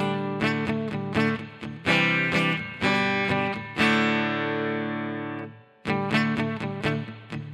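Fender Santa Rosa acoustic guitar with light-gauge strings, heard through a Marshall solid-state combo amp, played as picked single notes and chords. About four seconds in a chord is left to ring and fade out; after a short gap the picking resumes.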